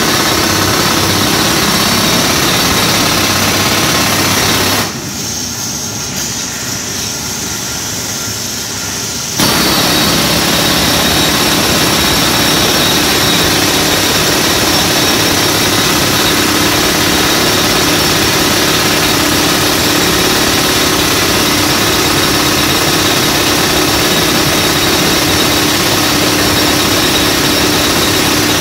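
Pneumatic jackhammer (air breaker) fed by a compressor hose, hammering continuously into a reinforced-concrete floor slab. It stops about five seconds in, leaving a quieter steady running sound for about four seconds, then starts again at full level.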